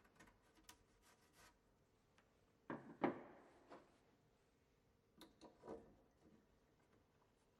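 A few short scrapes and taps of a sharp chisel paring out a shallow recess for a mortise latch's faceplate in the wooden edge of a door, the loudest about three seconds in, with near silence between strokes.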